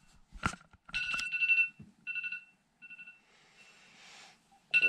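Electronic wake-up alarm beeping in short runs of high, piercing beeps, going off to rouse a sleeper. A soft rustle comes between the runs about three and a half seconds in.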